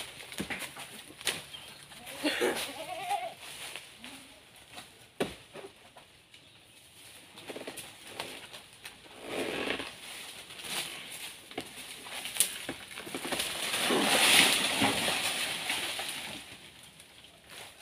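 Goats bleating now and then, several separate calls, the longest and loudest near the end, with a few short sharp knocks between them.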